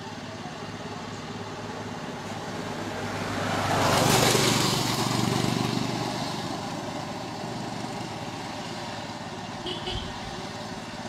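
A motorcycle passes close by, its engine and tyre noise swelling to a peak about four seconds in and fading as it rides away, over a steady low engine hum.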